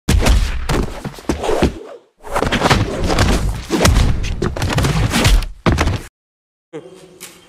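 Fight-scene punch and kick impacts: a rapid, loud series of thuds and whacks. The sound cuts out abruptly twice, about two seconds in and again about six seconds in, and is much quieter near the end.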